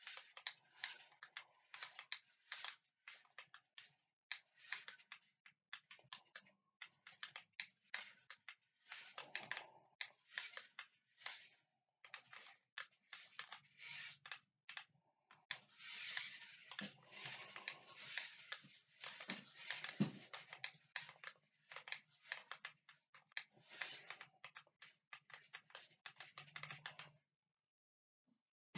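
Faint, irregular clicking and rattling from a small toy-grade RC truck's electric motor and plastic drivetrain as it is driven in short spurts, with stretches of a low motor hum. The sound cuts off abruptly shortly before the end.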